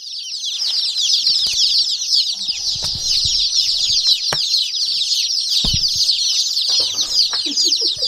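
A brooder full of newly hatched chicks peeping together, a dense, continuous chorus of short falling cheeps that is loud throughout. A couple of brief thumps sound about halfway through.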